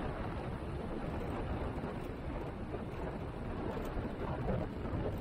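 ApolloFox ultralight taxiing at low power after landing: steady noise of the engine and propeller wash buffeting the strut-mounted microphone, with no distinct engine note standing out.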